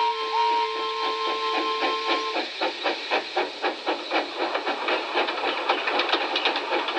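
Steam locomotive chuffing steadily, about four to five puffs a second, over a hiss of steam. Music with held notes plays under it for the first two seconds or so, then stops.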